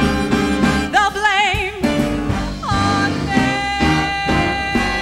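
Big band swing music with a woman singing long held notes with vibrato over horns and rhythm section; about halfway through the voice slides down into a note held to the end.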